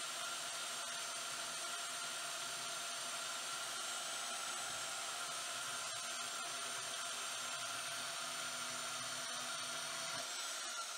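Vevor portable metal-cutting bandsaw running on its slowest speed setting, its blade cutting slowly through 10 mm thick steel flat bar under the saw's own weight: a steady hiss with a few steady high tones.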